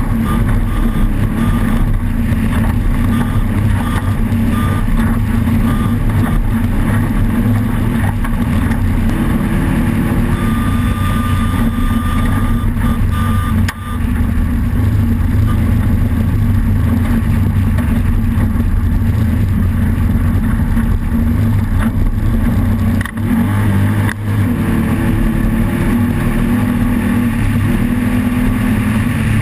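Off-road race car's engine running hard and steadily under way, with a constant rush of noise. The sound drops out briefly three times: once about 14 seconds in and twice close together around 23–24 seconds.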